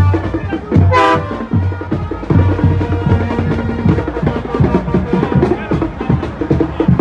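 Music with a heavy drum and bass beat.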